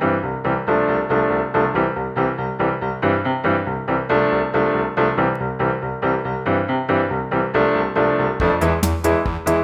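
Background music led by a piano-like keyboard melody, with drums coming in near the end.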